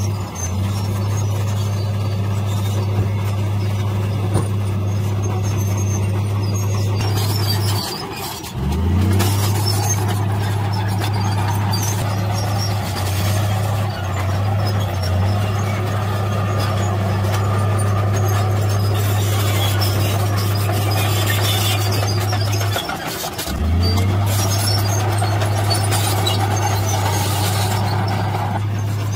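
Komatsu D53P crawler bulldozer's diesel engine running steadily as it pushes soil, with squealing from its steel tracks. Twice the engine note sags and climbs back up: about eight seconds in, and again a little past twenty seconds.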